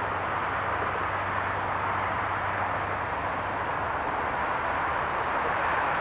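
Steady wash of distant city traffic noise, an even rumble and hiss with no distinct events.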